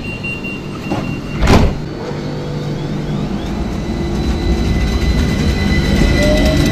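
AnsaldoBreda tram pulling away from the platform, its variable-frequency traction drive whining in several tones, one of which climbs in pitch as it gathers speed, over a low running rumble. A single loud thump comes about a second and a half in.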